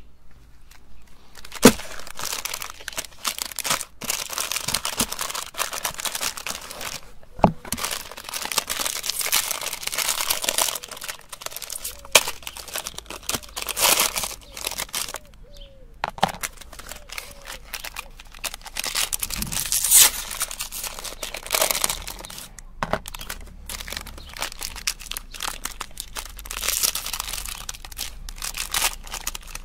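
Foil-lined plastic ice cream bar wrappers being torn open and peeled off by hand: continuous crinkling and rustling with tearing, and a few sharp snaps.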